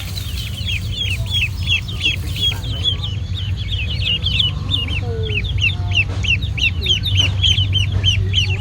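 Ducklings peeping continuously, a rapid run of short, high, downward-sliding peeps, several birds overlapping, over a steady low hum.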